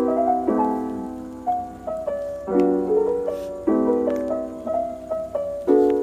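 Background music: piano playing a slow, gentle melody over repeated chords, each new chord struck about once a second and left to ring out.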